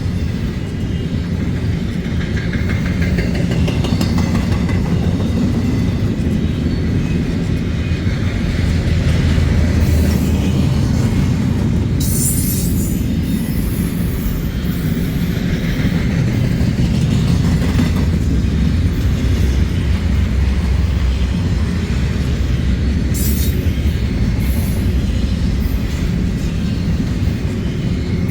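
A train rolling past: a steady low rumble of wheels on the rails, with brief high hissing bursts about 12 seconds in and again around 23 to 25 seconds.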